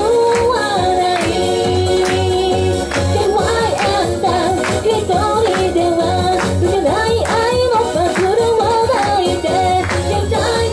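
A woman singing a pop song into a handheld microphone over a loud backing track with a steady beat of about two strokes a second.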